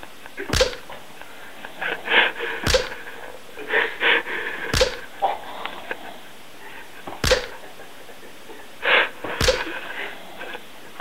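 Five sharp smacks on bare skin, evenly spaced about two seconds apart, each a single crisp hit.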